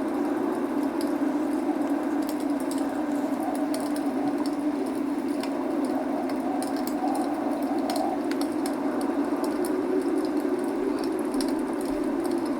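Log fire crackling with many small, irregular pops, over a steady rushing noise of falling rain.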